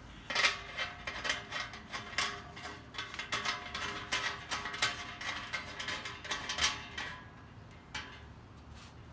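Stainless steel still parts clicking, scraping and ringing against one another as they are fitted together by hand, in a quick irregular run of metal-on-metal clicks that stops about seven seconds in, with one more click near the end.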